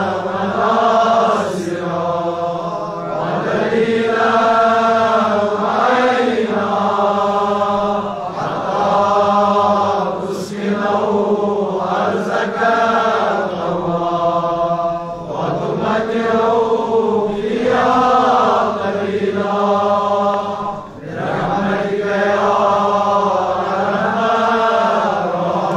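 A man's voice chanting an Arabic supplication in long, drawn-out melodic phrases, with short breaks for breath.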